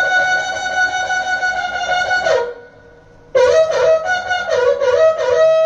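Rajasthani folk music on a reedy wind instrument. A long wavering note cuts off about two and a half seconds in, and after a second's pause comes a quick run of short notes ending on a held note.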